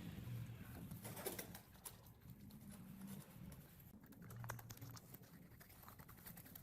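Faint low bird cooing in a few short phrases, with light scattered clicks.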